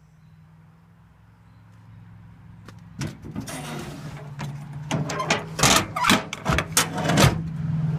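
Steady low engine hum with a run of clattering knocks and bangs from about three seconds in, as work-truck storage doors and gear are handled.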